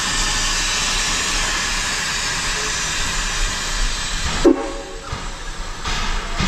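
1928 Lima Shay steam locomotive hissing steadily as it vents steam. About four and a half seconds in there is a short, loud ringing metallic sound, after which the hiss drops and returns in shorter spells.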